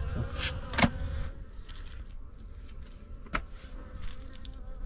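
A few sharp knocks and crackles from pieces of dry beeswax honeycomb being handled over an aluminium pot and a plastic bucket, the loudest a little under a second in, over a faint steady hum.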